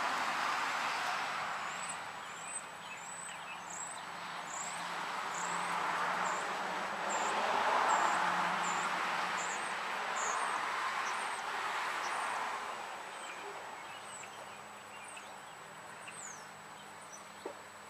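A bird chirping over and over in short, high-pitched notes about twice a second, over a rushing noise that swells and fades twice before dying down near the end.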